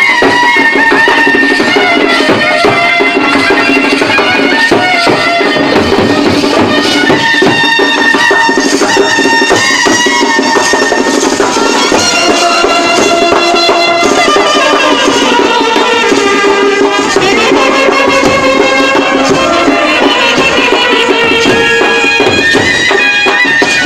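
Brass band playing a loud, fast folk tune: a wandering horn melody over steady drumming.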